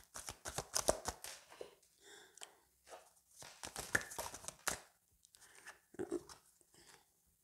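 Oracle card deck being shuffled by hand: a run of quick, irregular card clicks and flutters, with cards now and then laid down on a cloth.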